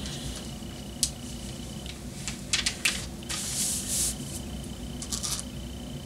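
Handling noise from pinning thin half-square-triangle paper onto fabric: rustling paper and a few light clicks as straight pins are pushed through, with a longer rustle a little past the middle.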